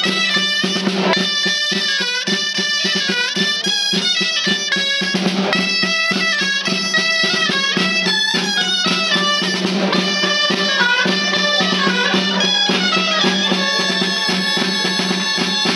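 Valencian dolçainas (reed shawms) playing a melody together, with a tabalet drum beating time throughout.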